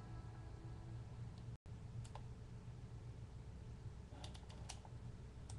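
Faint computer key clicks over a low steady hum: a single click about two seconds in and a quick cluster of clicks about four seconds in.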